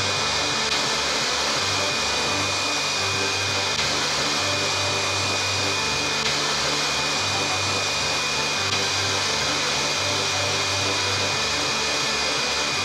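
Hair dryer blowing steadily at full power: a constant rushing of air with a steady high whine, over background music.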